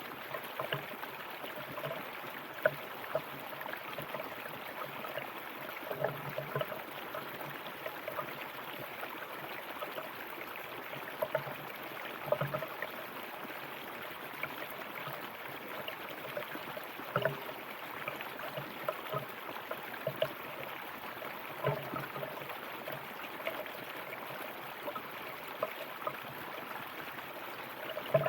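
River water running and babbling over stones: a steady rush dotted with small splashes and gurgles.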